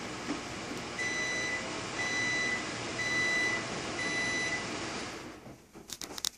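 An electronic appliance beeper sounding four times, about one beep a second, each beep a single steady tone lasting about half a second, over a steady background noise that fades out about five seconds in; a few short clicks follow near the end.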